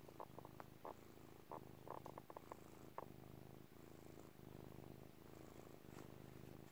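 Domestic cat purring softly, a steady low rumble that breaks briefly at each breath, with a few soft clicks in the first three seconds.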